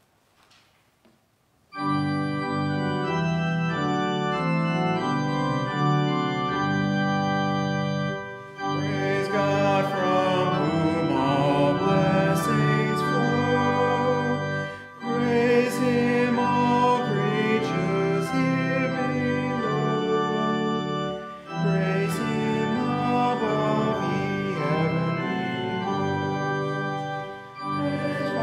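Church organ comes in about two seconds in and plays a hymn. From about eight seconds in a man's voice sings along with it, with short breaks between the lines.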